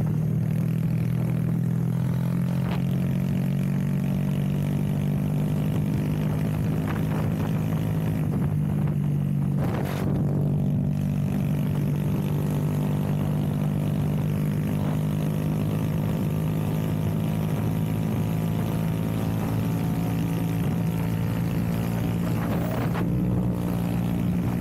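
Honda Grom's 125cc single-cylinder engine, fitted with an aftermarket cam and a 2 Brothers Racing exhaust, running at a nearly steady speed under way. There is a brief break in the tone about ten seconds in and another near the end.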